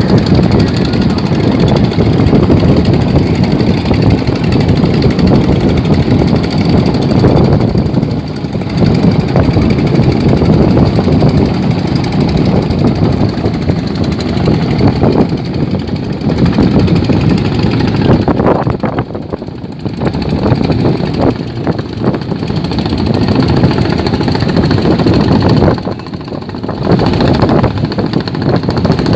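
Fishing boat engines running loudly and steadily as wooden boats pass, easing off briefly a few times.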